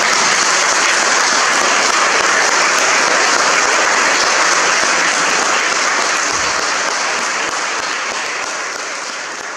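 Wedding guests applauding: many people clapping steadily, gradually dying away over the last few seconds.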